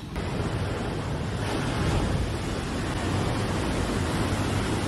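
Muddy floodwater rushing past in a torrent, a steady noisy rush that is strongest in the deep low end.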